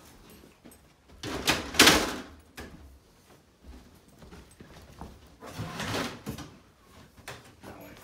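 Metal rack shelf panel sliding and scraping into place on the rack's metal frame: a loud scrape about one and a half seconds in, a weaker one around six seconds, and a few light knocks near the end.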